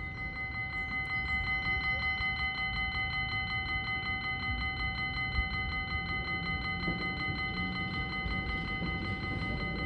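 Electric warning bell at a tramway crossing ringing continuously with a rapid, even rattle of strikes, signalling an approaching tram.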